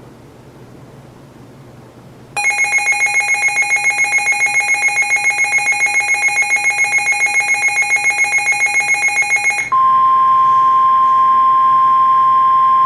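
A weather radio's alarm sounding a loud rapid electronic beeping, about five pulses a second, for some seven seconds, set off by an incoming severe thunderstorm warning. It then switches abruptly to the steady 1050 Hz NOAA Weather Radio warning alert tone from the radio's speaker.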